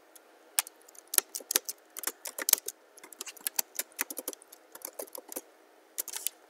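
Typing on a computer keyboard: a quick, uneven run of key clicks, about twenty keystrokes, as a short phrase is typed out.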